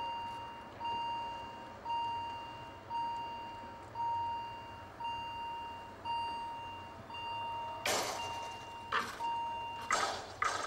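Railway level-crossing warning bell ringing about once a second, each stroke fading, as the crossing barriers come down. Louder rushing noises join from about eight seconds in.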